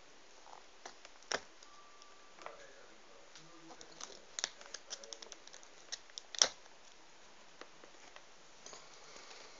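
A kitten playing in a crinkly white sheet: scattered sharp rustles and claw clicks, bunched in the middle, with two louder snaps about a second and a half in and again about six and a half seconds in.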